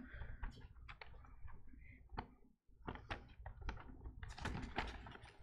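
A sheet of paper being unfolded and handled close to a lectern microphone: a run of faint crinkles and clicks, thickest in the second half.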